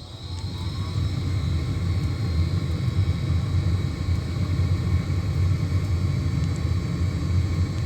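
Gas furnace starting up: a motor whine rises in pitch over about the first second, then the furnace runs with a steady, loud, low rumble.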